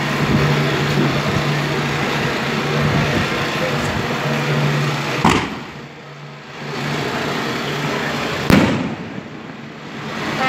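A steady engine hum over crowd noise, then two loud firecracker bangs about three seconds apart, the first about five seconds in.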